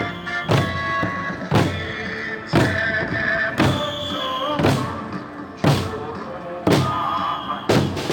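Music driven by a heavy drum beat, one loud stroke about every second, over a held melody line.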